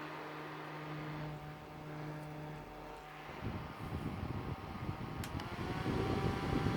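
Onan Korea N9-FAN electric fan running with a steady motor hum. About halfway in, a low rush of air starts and grows louder. A click comes near the end, and the motor whine then rises in pitch and holds higher as the fan speeds up.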